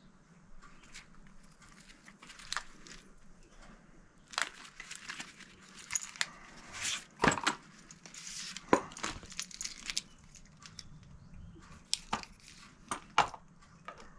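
Packaging and a small plastic device being handled: irregular crinkling and rustling with sharp clicks and knocks, busiest in the middle, then a few separate clicks near the end.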